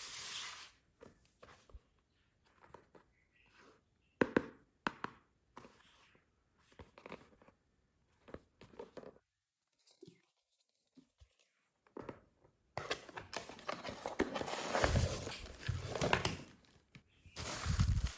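Close-up handling of packaging or the fan's plastic parts: a scattered run of small clicks, taps and crinkles, then about four seconds of continuous crinkling and rustling, with one more burst near the end.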